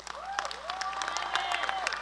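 Audience applauding in a gymnasium, with a couple of held cheers over the clapping.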